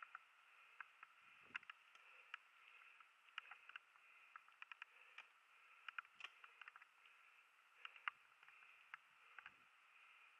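Faint sound of a mountain bike rolling fast over a gravel forest trail: a steady low rush with frequent irregular clicks and knocks as the bike rattles over stones, the sharpest about eight seconds in.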